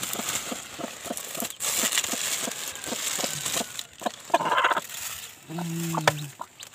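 Rustling and light tapping in straw nesting material around a broody hen and her newly hatched chicks. Near the end comes a low, drawn-out hen call, just after a shorter higher-pitched call.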